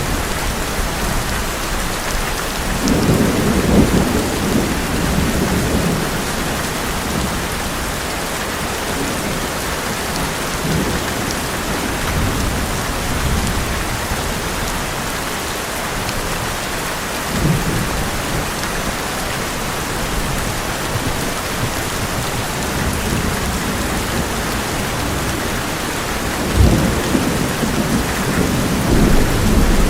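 Heavy rain drumming on an old metal roof as a steady hiss. Thunder rumbles deeply a few seconds in, briefly around the middle, and again near the end.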